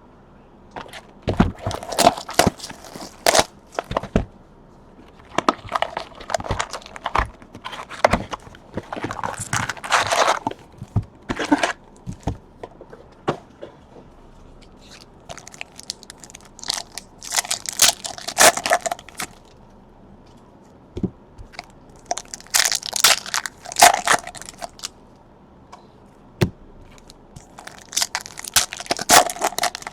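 Trading card packaging being opened and handled: wrappers crinkling and tearing in a handful of bursts, each a second or few long, with short pauses between.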